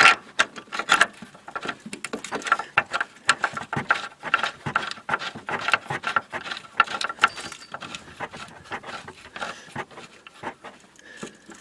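Rapid, irregular metallic clicking and clinking from hand tools on a rear shock absorber's mounting bolt as the bolt is fitted and run in, with a faint ring from the metal.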